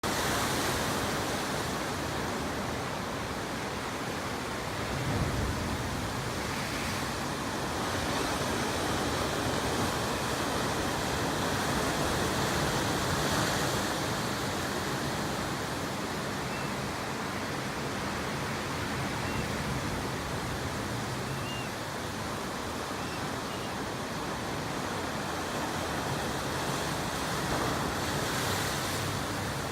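Pacific Ocean surf washing steadily against the shore below a cliff, swelling a little now and then as waves break.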